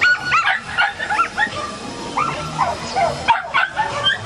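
A dog barking excitedly in a rapid string of short, high yipping barks, about three or four a second.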